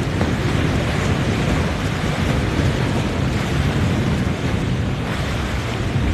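Wind buffeting the microphone over a steady wash of waves and surf.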